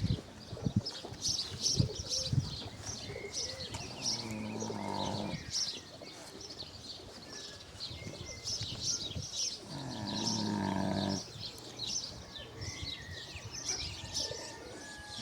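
A sleeping pig snoring: two long, deep snores, about 4 and 10 seconds in, evenly spaced with its slow breathing. Small birds chirp over it, and a few sharp knocks come in the first couple of seconds.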